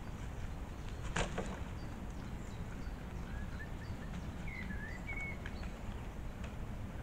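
Red deer stag browsing leaves from an overhanging branch, with one sharp snap of twigs about a second in. Small birds chirp a few times in the background.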